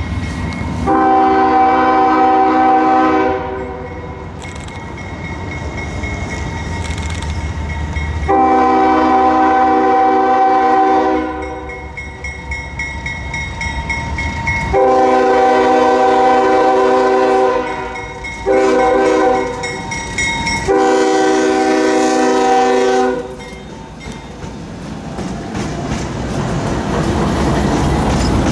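CSX freight locomotive's multi-note air horn sounding five blasts, long, long, long, short, long, ending in the standard long-long-short-long grade-crossing signal. Between blasts, and louder near the end, the locomotives' diesel engines rumble and the wheels run on the rails as the train passes close by.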